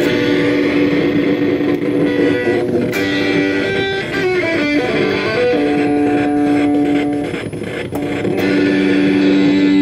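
Electric guitar played through a circuit-bent Joyo Classic Flanger pedal: held chords with the flanger effect on. About four seconds in, the notes bend and swoop in pitch, then the chord holds steady again.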